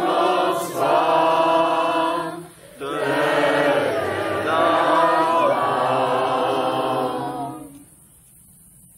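A group of voices singing a goodnight song together in two phrases with a short breath between them about two and a half seconds in. The last phrase fades out about eight seconds in.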